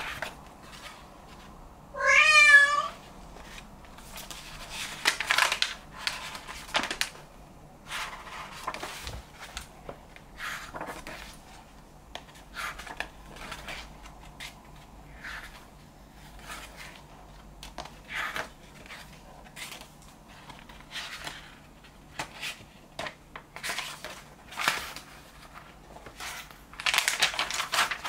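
Paper pages of a book being turned and handled, a rustle or swish every few seconds. A cat gives one short wavering meow about two seconds in.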